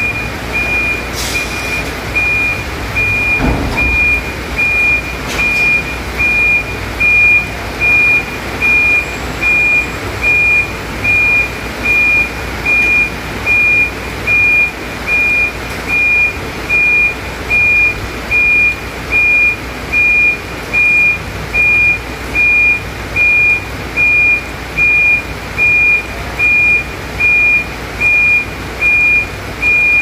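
Dump truck's reverse alarm beeping while the truck backs up: one steady high tone, pulsing evenly a little over once a second, over the low running of the truck's engine. A single thump about three and a half seconds in.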